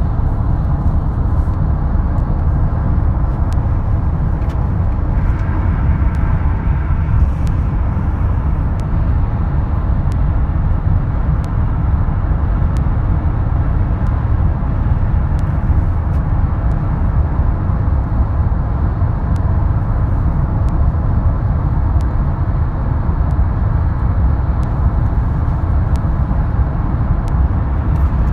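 Steady low rumble of a car on the move, road and engine noise.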